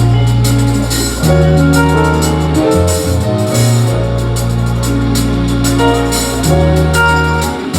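Instrumental music with no singing: deep held bass notes changing every second or two, a keyboard melody above, and a steady drum beat with regular cymbal ticks.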